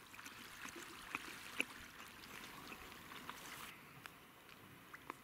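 Faint outdoor ambience, a soft even hiss with a few small clicks, turning quieter and duller about three and a half seconds in.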